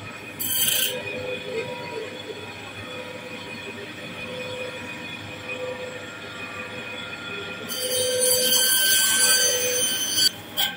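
Electric band saw running with a steady whine as its blade cuts through a large ayre catfish. A brief harsh burst comes about half a second in, and the cutting grows louder and harsher from just before eight seconds to just past ten.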